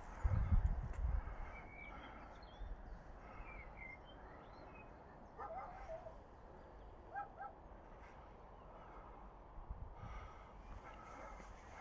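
Wild birds chirping and calling in short, scattered phrases over a quiet outdoor background. A brief low rumble near the start, likely wind on the microphone, is the loudest sound.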